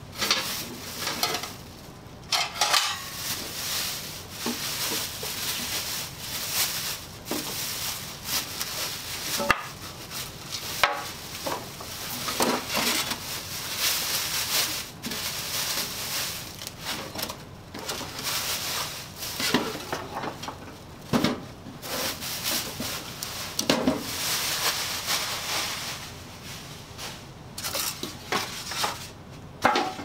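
Plastic wrap and a plastic bag crinkling and rustling in irregular bursts as they are pulled off a new toaster oven, with foam packing pieces rubbing and a few sharp knocks.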